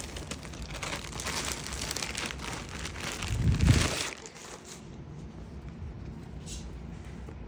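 Plastic packaging crinkling and rustling as a costume is unwrapped. It is loudest about three and a half seconds in, with a low thump, then quieter.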